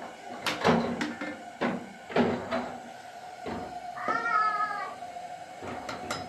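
A cat meows once, about four seconds in. Several sharp knocks and thuds come before and after it.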